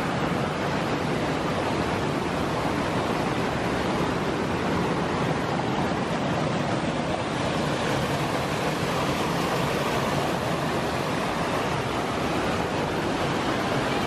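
Steady rush of a rocky mountain stream, white water pouring over and between boulders.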